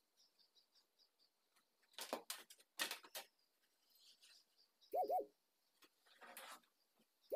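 A dove cooing: a short two-note coo about five seconds in, repeated about two and a half seconds later. It follows a few scratchy rubbing noises a couple of seconds earlier.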